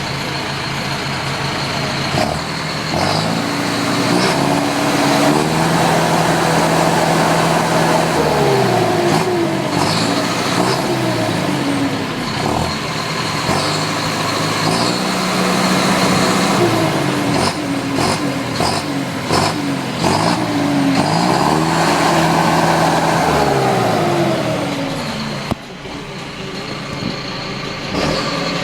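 John Deere 6430 tractor's turbo diesel engine revved up from idle three times. Each time it is held at high revs for a few seconds with a rushing turbo sound, then drops back down.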